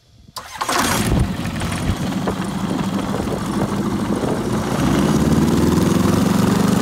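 Rotax 912 aircraft engine starting about half a second in and then running, settling into a steadier, even run about five seconds in. It is running again after its camshaft was replaced with an aftermarket one.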